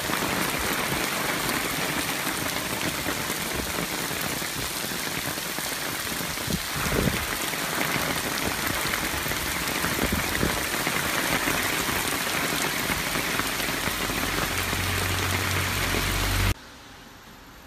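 Heavy typhoon rain pouring steadily, with a brief low bump about seven seconds in; the sound cuts off abruptly near the end.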